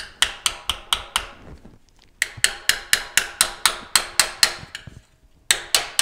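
Steel hammer striking a strip of sheet steel held against a steel bar, flattening out too much curve in a patch piece. Three quick runs of sharp, ringing blows, about four a second, with short pauses between them.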